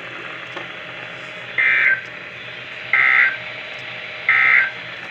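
Three short EAS (SAME) digital data bursts over NOAA Weather Radio, each a two-tone electronic warble lasting about a third of a second, roughly 1.3 seconds apart. Bursts this short mark the end-of-message code that closes a weather alert, here a tornado watch.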